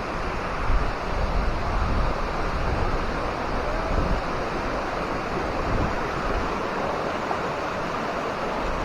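Steady rush of flowing water, with uneven low gusts of wind buffeting the microphone.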